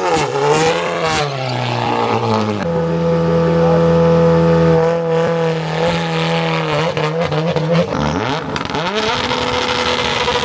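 Hillclimb race car engine revving, then held at steady high revs on launch control for a couple of seconds before the revs fall and climb again as it pulls away.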